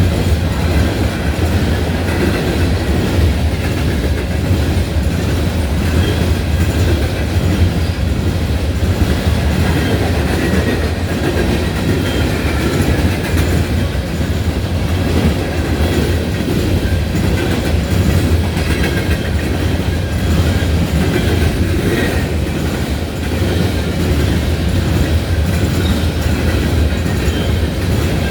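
Train of empty coal hopper cars rolling past at speed: steady rattling and clickety-clack of steel wheels over the rails, with faint high wheel squeal at times.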